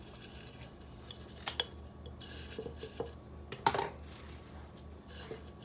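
A few light clinks and taps of handling around a glass mason jar as cut lemongrass stalks are pushed into it, with one sharper click about a second and a half in and a louder one about two seconds later.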